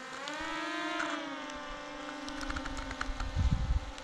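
Quadcopter drone's propellers whining overhead as it flies, the pitch rising in the first second, then holding steady.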